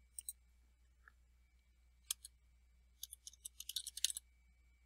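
Computer keyboard typing: a few single clicks, then about three seconds in a quick run of about a dozen key clicks as a short word is typed.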